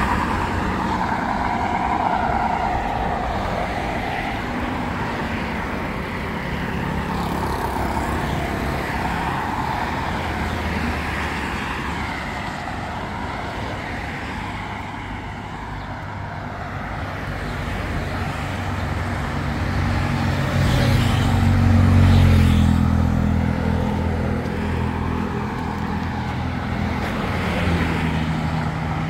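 Road traffic: vehicles passing on a wide road, a steady rush of engine and tyre noise that swells as one vehicle passes about three-quarters of the way through.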